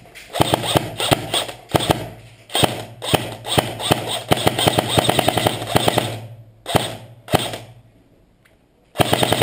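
Airsoft guns firing rapid full-auto bursts of sharp clicking shots for several seconds. Two single shots follow, a short lull, then another rapid burst starts near the end.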